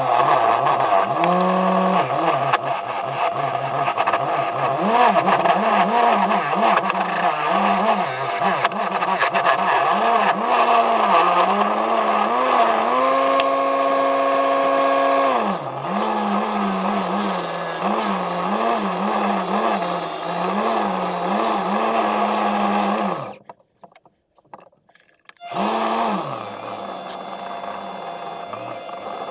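Wood lathe motor running with a bowl blank spinning, its pitch dipping and recovering again and again as a gouge scrapes and cuts into the wood. For a couple of seconds mid-way it holds a steady, higher pitch with the tool off the wood. The sound drops out for about two seconds near the end, then comes back quieter as sandpaper rubs on the spinning bowl.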